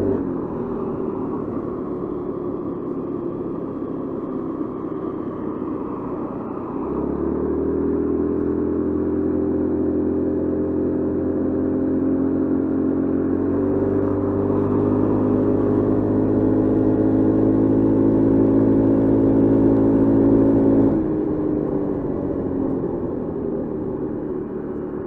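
Honda Forza 350 scooter's single-cylinder engine running under way, heard from the rider's seat. It runs softer at first, picks up about seven seconds in to a steady, slowly rising note under throttle, and falls back again a little after twenty seconds.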